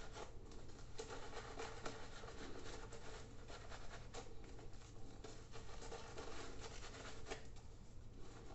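Razorock Snowman 24mm synthetic shaving brush swirling shaving-soap lather over the face, a continuous rapid crackling rub of bristles and foam against the skin.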